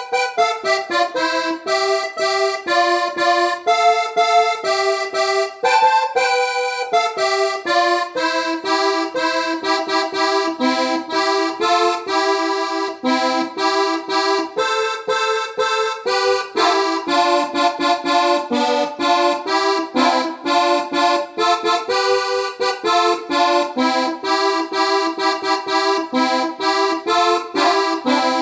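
Electronic keyboard playing a loose, improvised melody over held chords, with sustained, reedy notes that change several times a second without a break.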